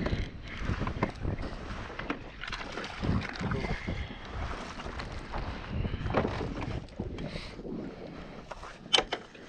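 Wind buffeting the microphone and water lapping against a fishing kayak, with scattered small clicks and knocks of handling rod, reel and hull as a small bass is reeled in and lifted aboard; a few sharper knocks near the end.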